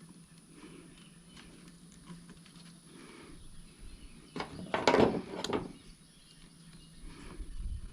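Quiet handling of small parts and tools at a workbench, with a few light clicks and a brief, louder rustle and clatter about four and a half seconds in, over a faint steady hum.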